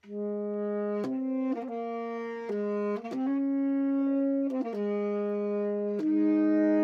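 Two tenor saxophones playing a duet in canon, two interweaving melodic lines of held notes that change every second or so. Both enter together at the start after a short rest.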